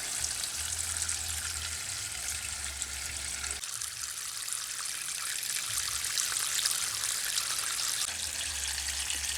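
Water trickling steadily out of a rain barrel's drain valve that has just been thawed open after freezing shut, draining the barrel.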